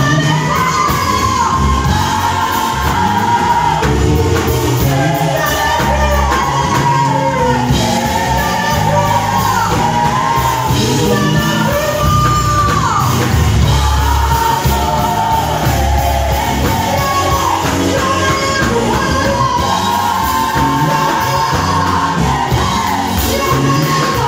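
A vocal group singing a song live, voices rising and falling over a steady low bass line, continuous and loud.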